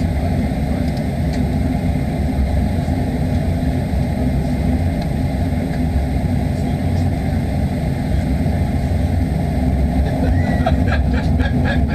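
Steady low rumble of a Boeing 737-800's CFM56-7B turbofan engines idling, heard inside the passenger cabin. A faint voice comes in near the end.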